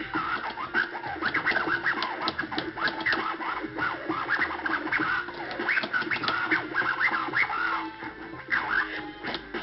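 Turntable scratching: a vinyl record is pushed back and forth by hand under the needle while the mixer fader cuts the sound in and out, making many quick rising and falling sweeps. The sweeps thin out briefly near the end.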